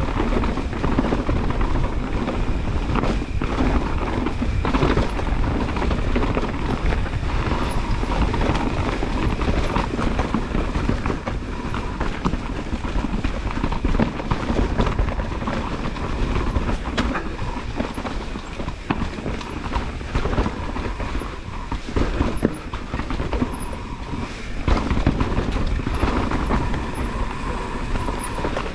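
Mountain bike riding fast down a dirt forest trail: tyres rumbling over the ground, with constant rattles and knocks from the bike as it runs over bumps and roots.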